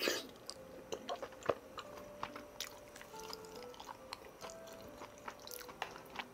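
Close-up eating sounds of someone chewing spicy tteokbokki, with many small scattered clicks, over soft background music.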